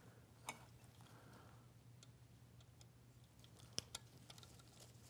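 A few faint metal clicks as hex bolts are set into the head of a laboratory vacuum pump and a hex tool is fitted to them, two of them close together near the end, over a low steady hum.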